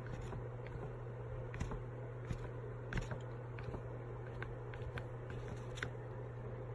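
Irregular faint clicks and scrapes of a sheet of paper being handled close to a phone microphone, over a steady low hum.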